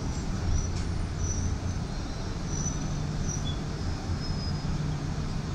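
Ride noise inside a moving articulated bus: a steady low hum from the drive and road, with a few faint short high squeaks.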